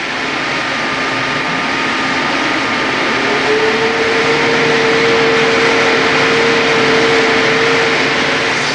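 Disc brake on a brake test rig running in a wet-braking test: a steady loud rushing hiss of the rotating disc and machinery. A steady tone comes in about three and a half seconds in and stops shortly before the end.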